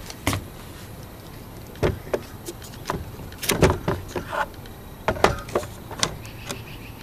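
Irregular knocks and clicks of a 1990 Jeep Cherokee XJ's plastic instrument cluster being handled and turned over on a wooden table.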